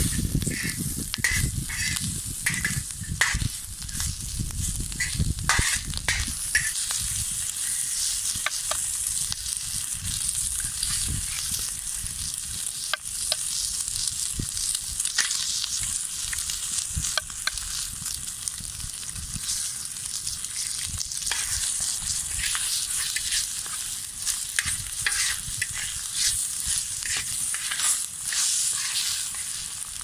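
Sucuk sausage slices and eggs sizzling in a wide steel saç pan over a wood fire, with a steady hiss and frequent sharp spattering pops.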